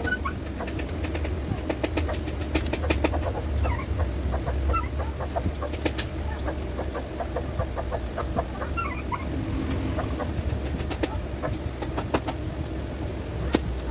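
Scattered clicks and taps of hands handling a rice cooker's plastic body and wiring, over a steady low rumble, with a few faint bird chirps around the middle.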